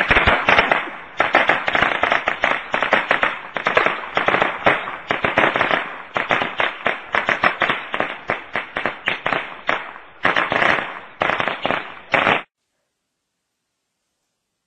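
A string of firecrackers going off in a rapid, irregular crackle of sharp bangs. It ends abruptly about twelve seconds in.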